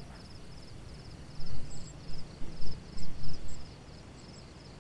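Crickets chirping in a steady, even rhythm, about two or three chirps a second. A few soft low thumps come in the middle.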